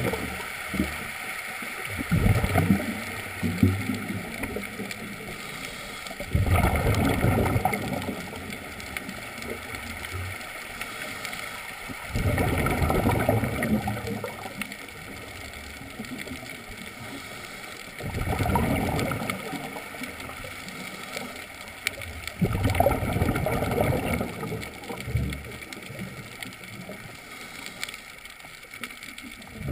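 Scuba diver's exhaled bubbles from the regulator, heard underwater: a bubbling gurgle in about five bursts, one every five or six seconds, each lasting a couple of seconds, with quieter breathing between them.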